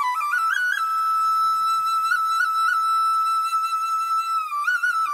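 Background music: a solo flute melody with quick ornamental turns, holding one long high note through the middle before another run of turns near the end.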